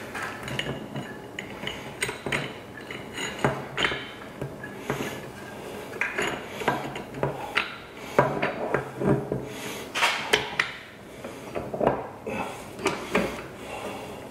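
Steel parts of a transfer case knocking and clinking together irregularly as the shafts and drive chain are worked into place by hand, some knocks with a brief metallic ring.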